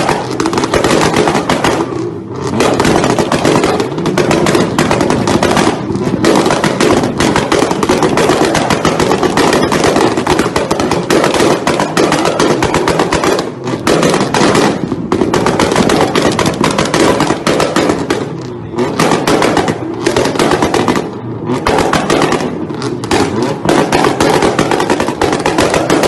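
Nissan GT-R's exhaust firing off rapid, machine-gun-like pops and bangs with flames, broken by a few short pauses.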